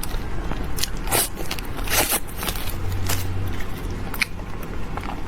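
Close-miked eating: biting and chewing food, with several sharp crackly crunches spread through the chewing and a low steady hum underneath.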